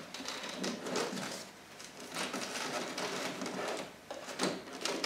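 Cardboard box scraping and rubbing as it is slid out of a 3D printer's enclosure, with a few light knocks along the way.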